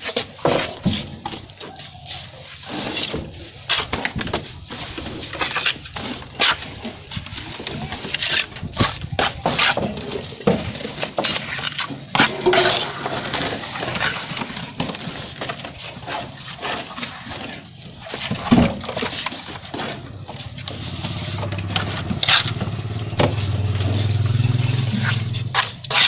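A plastering trowel flicks cement mortar from a hand-held mortar board onto a concrete beam and works it in, making irregular wet slaps and scrapes. A low steady hum joins for the last few seconds.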